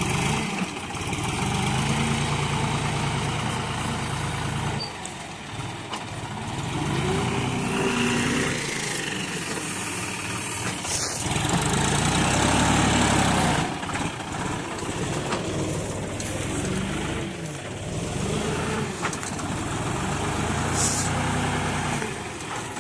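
John Deere 5036 D tractor's three-cylinder diesel engine running while working a front loader, its pitch rising and falling several times as it revs under load digging and lifting soil.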